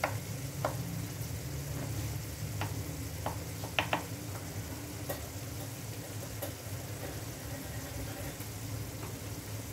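Chopped tomatoes frying in oil in a pan on a gas burner over low heat: a soft, steady sizzle with a low hum underneath and a few scattered pops.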